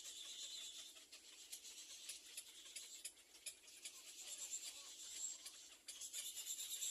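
Faint scratchy rustling with many small clicks, from nestling birds shifting about in their nest.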